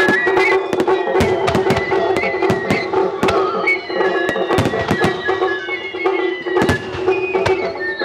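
Competition fireworks bursting and crackling in quick succession over accompanying music, which has a high flute-like melody above a steady drone. Several long falling whistles come through in the middle.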